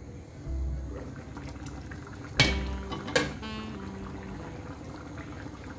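Thick coconut-based chicken and ash gourd curry bubbling at the boil in a steel pot. About two and a half seconds in, the glass pot lid is lifted off with a sharp clink, then a second clink with a brief ring as it is set down.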